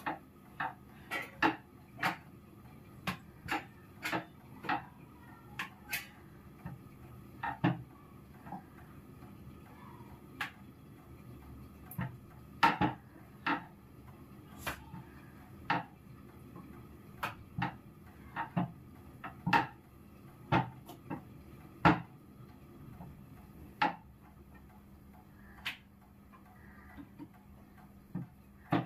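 Rolling pin knocking and clacking on a round chapati rolling board as chapati dough is rolled out: irregular sharp knocks, one or two a second, some much louder than others.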